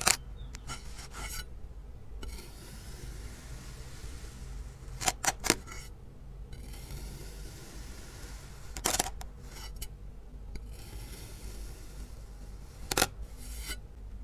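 A steel knife blade slicing down through a soft purple dome, four separate cuts about four seconds apart. Each cut gives a brief crisp scrape with one to three sharp clicks.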